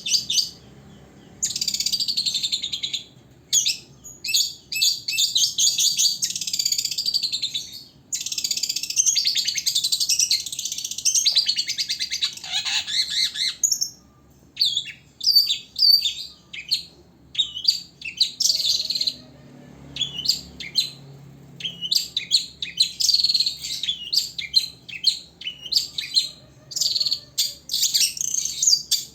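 Long-tailed shrike (cendet) singing: long runs of rapid, high chattering chirps a few seconds at a time, broken by short pauses.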